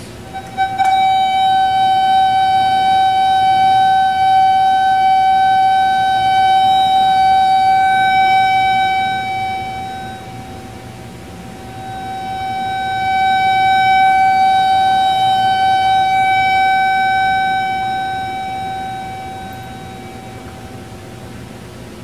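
Steady mid-pitched tone from the microwave receiver's audio output speaker, which sounds the strength of the received microwave signal. It comes on abruptly about a second in, then fades to a low point near the middle and swells loud again before dying away near the end as the receiver slides along its rail through interference maxima and minima.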